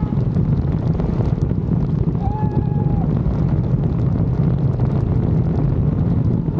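Thai longtail boat's four-cylinder turbo diesel engine running hard at speed with a steady, loud, low drone, and wind buffeting the microphone.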